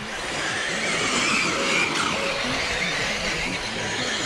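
Radio-controlled model race cars running around the track: a high motor whine that rises and falls in pitch as the cars accelerate and brake through the corners, over tyre noise.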